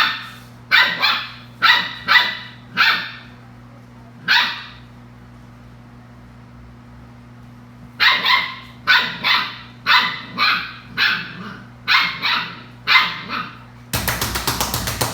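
Belgian Malinois puppies barking in quick, sharp yaps. There is a pause of a few seconds in the middle, then another run of barks over a low steady hum. Near the end, music with a fast beat starts.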